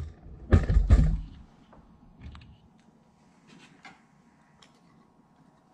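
Handling noise: a cluster of dull knocks and rattles in the first second or so, then a few light scattered clicks as small parts are handled.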